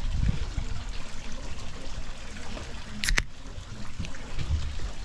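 Water trickling and lapping against the dock, with a short sharp high click about three seconds in.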